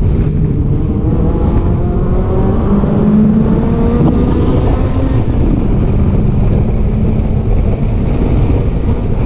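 Historic race car's engine heard from on board, pulling hard out of a corner, its pitch rising over the first four seconds and then holding at high revs down the straight, over a heavy low rumble.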